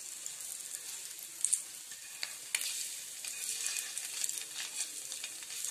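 Halved boiled eggs sizzling in oil on a dosa griddle. A metal spatula scrapes and taps on the griddle a few times as the eggs are turned over.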